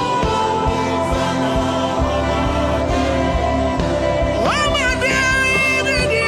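Gospel worship music: sustained chords with a steady low beat and singing. About four seconds in, a voice slides up to a high held note.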